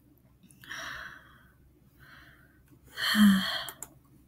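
A woman's breath sounds: two soft audible breaths, then a louder, short voiced exhale about three seconds in.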